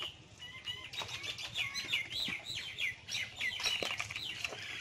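Birds chirping: a busy run of short, high chirps that thickens about a second in and keeps going.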